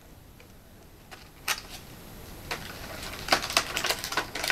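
Plastic toy and packaging being handled: a few scattered clicks and light rustling, growing busier near the end.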